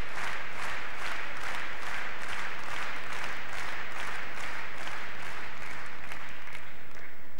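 Tennis arena crowd applauding, clapping together in a steady rhythm of about three claps a second; the clapping stops near the end.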